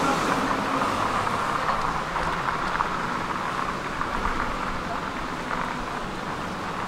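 Steady outdoor city ambience, mostly the hum of distant road traffic, easing off slightly toward the end.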